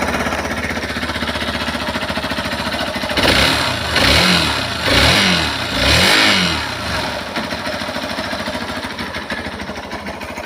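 Hero Xpulse 200 4V BS6 single-cylinder motorcycle engine idling, revved four times in quick succession about three seconds in, then settling back to idle. The owner presents this noise as an engine sound problem.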